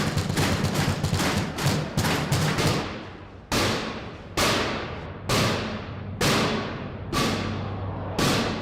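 Inmates banging on metal in solitary confinement cells, the bangs echoing off concrete and metal. A fast flurry of strikes runs for about three seconds, then six heavy single bangs follow about a second apart, each ringing out and fading.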